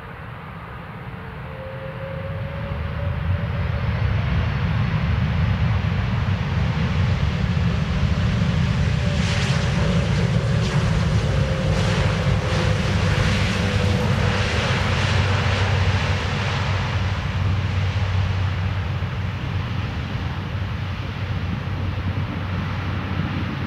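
Airbus A330-300 airliner's jet engines passing on its landing approach: a deep rumble that swells in the first few seconds, holds loud for about a dozen seconds with a faint whine falling slightly in pitch, then slowly fades.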